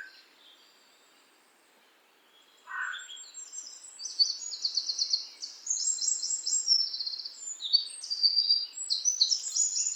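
Songbirds singing. After a quiet pause of about two and a half seconds comes a short lower call, then a dense run of high, rapid trilled phrases to the end.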